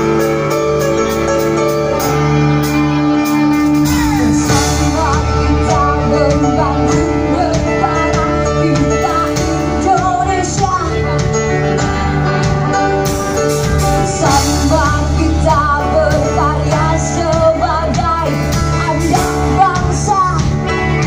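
Live band playing through a PA: held keyboard chords, then a female singer comes in about four seconds in over electric guitars and a drum kit.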